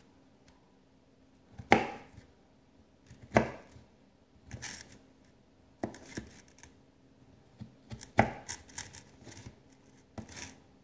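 Knife cutting a strawberry on a plate: about six separate cuts a second or two apart, each a short knock as the blade meets the plate.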